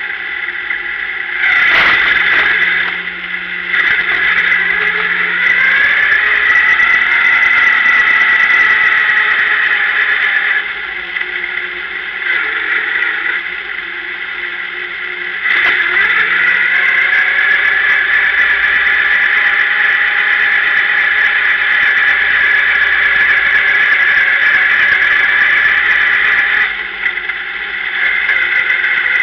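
Sportsman race car's engine running as the car rolls slowly, heard from inside the cockpit, with a strong steady high tone over it. It eases off for a few seconds about ten seconds in, then comes back up.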